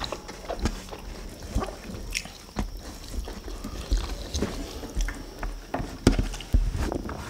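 Close-miked eating sounds: wet chewing and lip smacks, with fingers pulling apart sauced chicken and rice, coming as irregular short clicks. They are loudest near the end.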